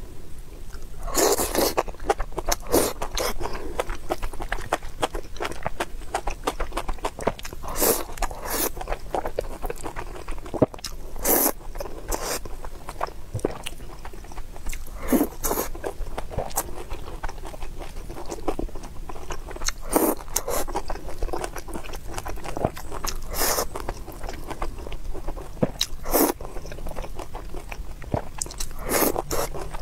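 A person eating close to the microphone: chewing and biting mouthfuls of food lifted with chopsticks, with louder bites or slurps every few seconds.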